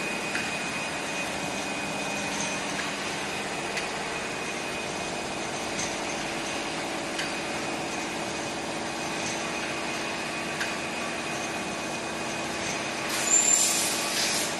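Automatic multi-color screen printing line with UV curing units running: a steady mechanical hum under a constant high whine, with faint clicks every second or two and a short, louder burst of hiss near the end.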